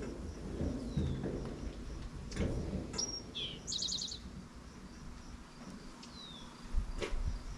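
Songbirds chirping, with short downward-gliding calls and a rapid trill about three seconds in, over low rumbling thumps and a few sharp clicks.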